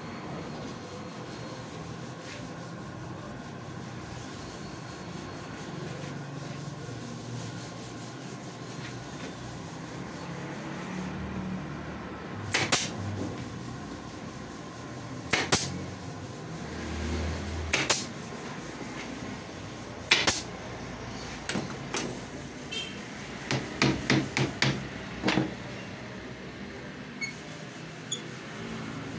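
Pneumatic nail gun firing sharp shots into wood while fastening diagonal supports to a wooden canvas-stretcher frame, which keep it square. Single shots come a few seconds apart, then a quicker run of about half a dozen near the end, over a low steady workshop background.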